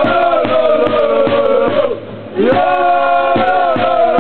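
Football supporters chanting in unison, many male voices holding a sung line over a steady beat about twice a second. The chant breaks off briefly about halfway through, then picks up again.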